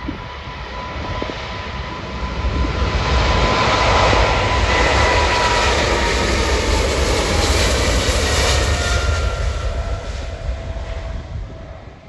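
Jet engines of a Boeing 777 at takeoff thrust passing by: the sound swells about two seconds in, stays loudest for several seconds with a whine that slides slightly lower in pitch, then fades away near the end.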